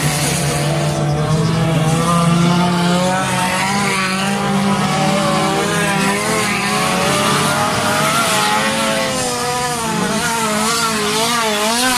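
Several stock car engines running hard on a dirt track. Their pitch wavers quickly up and down, louder and more unsteady near the end.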